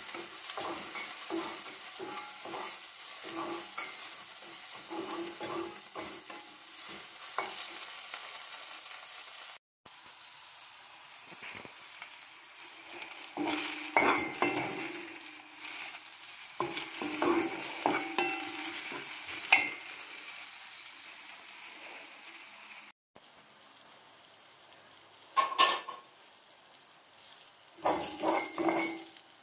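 Chopped onion sizzling in a bare Lodge cast iron mini wok, fried without oil, while a wooden spatula scrapes and knocks against the iron as it is stirred. This is the seasoning step for a new cast iron wok: the onion is browned slowly on low heat.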